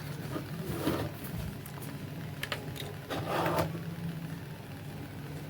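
Handling noises at a repair bench: a few light clicks and two short scraping rustles, about a second in and a little after three seconds, over a steady low hum.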